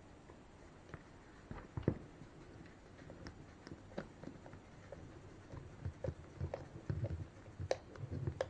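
Irregular light clicks and taps of a small machine screw and a magnetic screwdriver being handled while the screw is fitted, with a sharper tick about two seconds in and another near the end.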